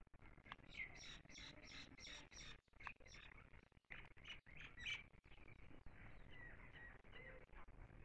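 Bimaculated lark calling: a quick run of short, high chirps for the first five seconds or so, then fainter, scattered notes.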